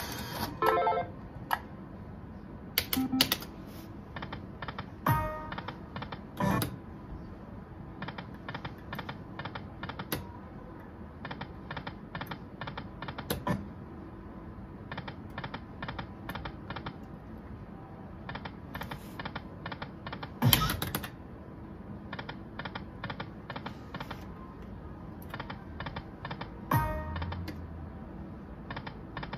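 Aristocrat Dragon Link Golden Century poker machine spinning its reels: runs of rapid, evenly spaced ticks about three to four a second, broken by several louder short machine sounds as spins start and reels land.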